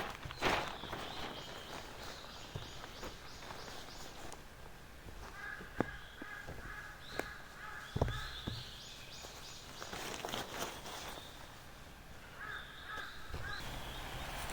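Birds calling: runs of quick high chirps and two bouts of harsh, repeated caw-like calls, with a few sharp knocks in between.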